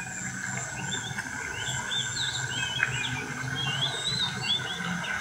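Birds calling in a rapid series of short, wavering chirps, over a steady high drone.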